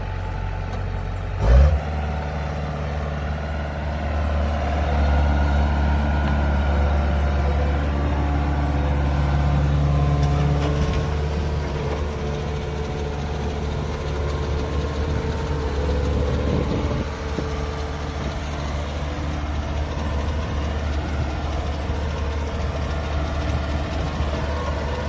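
Diesel engine of a Kubota DC-105X tracked combine harvester running steadily as the machine drives on its tracks, the engine note growing louder for several seconds and then settling back. A short thump about a second and a half in.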